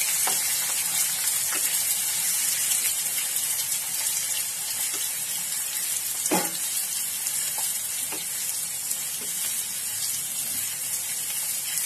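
Sliced onions sizzling in hot oil in a nonstick kadhai as they are stirred with a wooden spatula, a steady hiss with a few light knocks of the spatula against the pan, the loudest about six seconds in.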